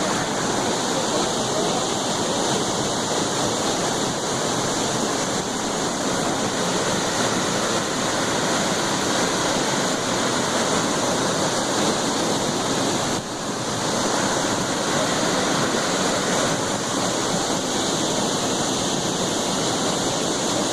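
Waterfall: a steady, dense rush of falling water, dipping briefly about thirteen seconds in.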